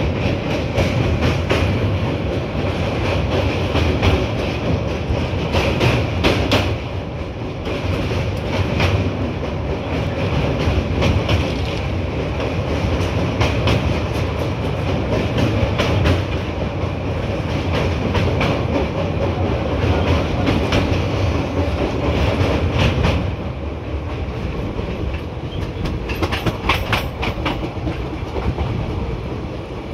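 Passenger train running across a steel truss railway bridge, heard from a coach window: a steady rumble with many sharp clicks and rattles from the wheels. About three-quarters of the way through, the sound drops and quietens as the train comes off the bridge onto plain track.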